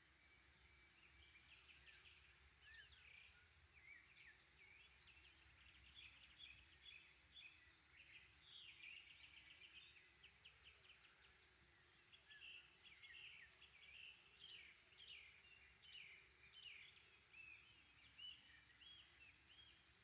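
Faint morning chorus of several songbirds, with overlapping chirps and short trills from different birds.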